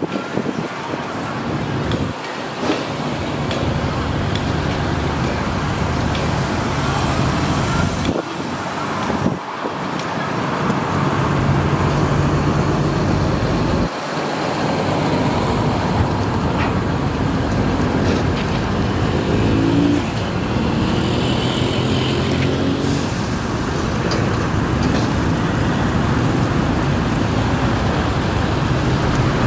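Matador ME210LC-1 hydraulic excavator's diesel engine running steadily under load while it digs, its note rising and falling as the boom and bucket work.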